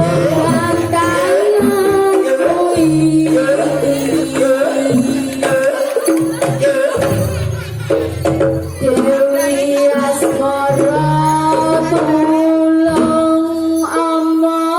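Javanese jaranan dance accompaniment music: drums beating under held, wavering melodic lines and a singing voice.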